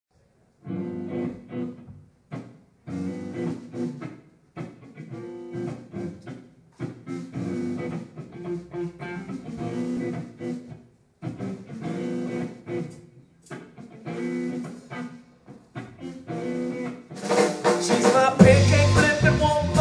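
Live band song intro: electric guitar plays rhythmic chord phrases broken by short pauses, then about seventeen seconds in the drums with cymbals and the bass come in and the full band plays louder.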